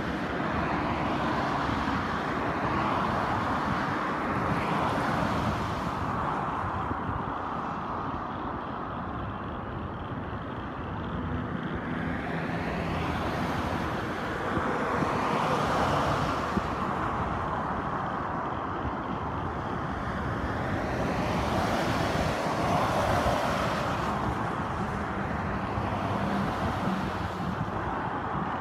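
Steady outdoor traffic noise that swells and fades about three times as vehicles pass, over a low rumble.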